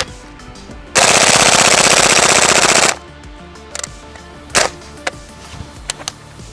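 Gas blowback airsoft rifle firing a full-auto burst of about two seconds, starting about a second in, followed by a single shot about a second and a half later.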